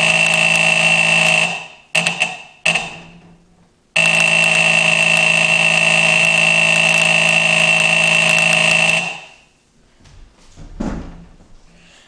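Faraday fire alarm horn sounding a loud, steady buzzing tone: on for about a second and a half, two short blips about two and three seconds in, then a long blast from about four seconds in that cuts off sharply near nine seconds.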